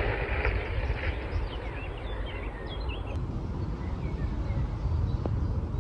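Small birds chirping in quick, rising and falling notes over a steady low rumble, with a brief rustle at the start; the chirping is busiest in the first half.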